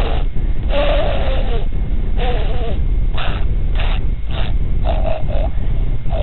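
A man making silly noises with his voice: a string of about eight short, separate sounds, some breathy and hissy, some with a wavering tone, including three quick ones in a row near the end, over a steady low rumble.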